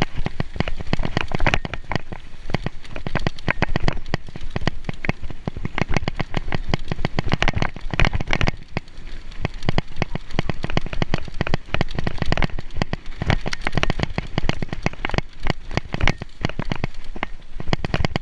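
Mountain bike descending a rough, wet dirt trail: a dense, continuous clatter of knocks and rattles from the tyres and frame over the ground, with no letup.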